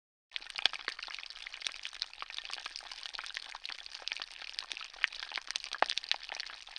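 Dense, steady crackling made of many small sharp pops and clicks, starting suddenly after a brief moment of silence.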